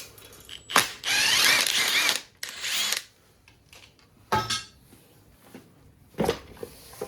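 Power drill spinning fasteners during an engine teardown, in two runs: one of about a second with a wavering whine, then a shorter one, with sharp metal clinks between.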